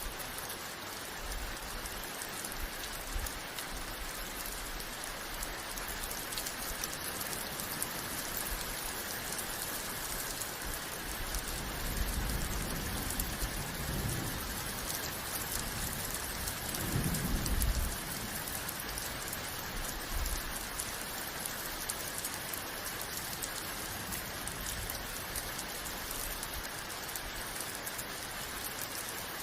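Steady rain falling, a constant hiss of drops. About halfway through come two low rumbles of thunder a few seconds apart, the second the louder.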